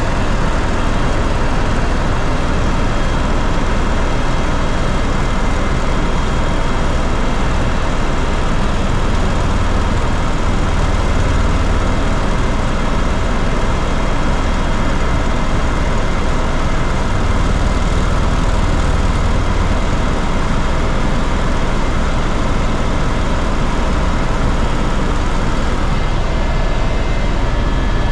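Steady engine and airflow noise inside the cabin of a small tour aircraft in flight, with a few faint steady tones over it.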